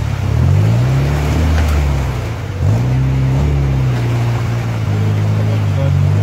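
Off-road 4x4 buggy's engine revving as it drives through a river, climbing in pitch just after the start, dipping, then rising sharply about two and a half seconds in and holding steady. Water churns and splashes around the wheels.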